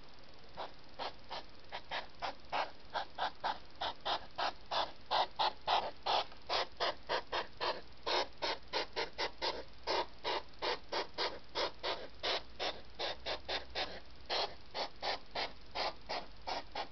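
Hedgehogs huffing at each other: a rapid, rhythmic string of short puffing snorts, about three a second, the sound hedgehogs make when they confront each other.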